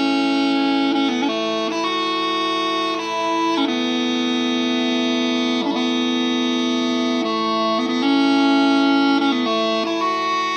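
Scottish smallpipes playing a slow melody of held notes on the chanter over steady drones.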